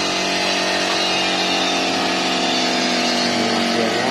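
CNC engraving machine running steadily as it cuts an emboss die, its spindle giving a steady multi-tone whine over a constant hiss.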